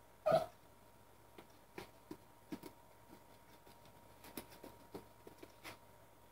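Small dog giving one short, sharp bark about a third of a second in, followed by a scatter of faint light taps and ticks.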